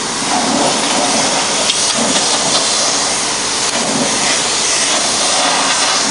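Compressed air hissing steadily from a blow gun, blowing brake dust out of a truck's disc brake caliper.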